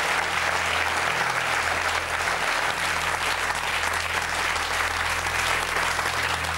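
Studio audience applauding steadily, over a low steady hum.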